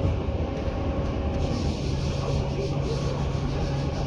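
Tobu 10030 series electric train running, recorded inside the car beside its circuit breaker: a steady rumble of wheels on rail with a constant low hum from the car's equipment.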